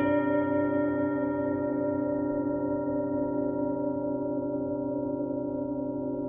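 A metal singing bowl struck once at the start, then ringing on in several steady overlapping tones that fade only slowly, along with bowls struck earlier that are still sounding.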